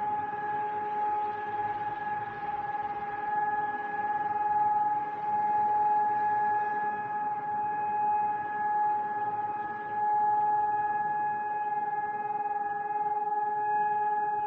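Civil defence siren sounding one steady, unbroken tone that keeps the same pitch, swelling and easing slightly in loudness. A steady tone like this is the all-clear (end of danger) signal in a national siren test.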